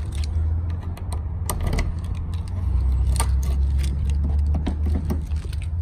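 A bunch of keys jangling and clicking in a hand, in scattered sharp clinks, over a steady low rumble.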